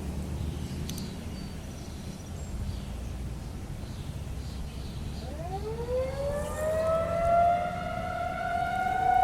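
Federal Signal 2001-SRNB electromechanical tornado siren, heard from about 0.4 miles away, starting a test: after about five seconds of low background rumble it winds up, its pitch rising and then levelling into a steady tone with several overtones that grows louder toward the end.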